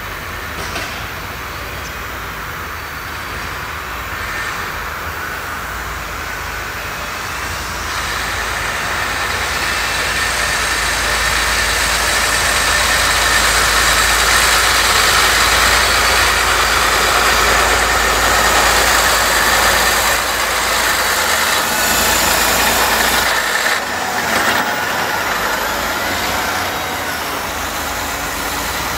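John Deere tractor's diesel engine running as the tractor drives across the maize silage clamp, compacting the chopped maize. It gets louder from about eight seconds in as the tractor comes close, and eases off a little after twenty seconds.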